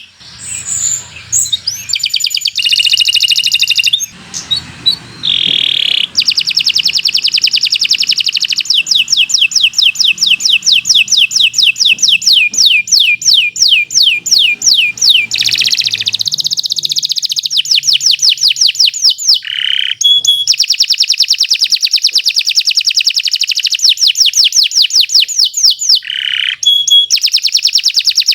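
Domestic canary singing a long, nearly unbroken song of fast rolling trills and rapid strings of repeated high notes, switching from one trill to another every few seconds.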